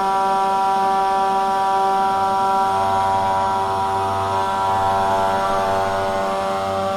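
3018 desktop CNC router with a 500 W spindle running and milling a slot in wood: a steady whine made of several tones. A deeper low hum joins in about two and a half seconds in and holds to near the end.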